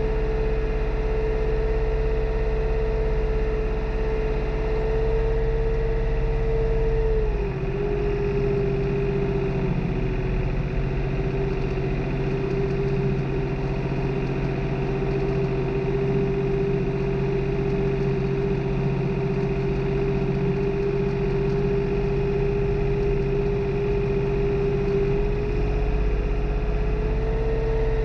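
New Holland tractor's diesel engine running steadily under load while tilling, with a strong steady whine over the engine note. The whine drops slightly in pitch about seven seconds in and climbs back near the end.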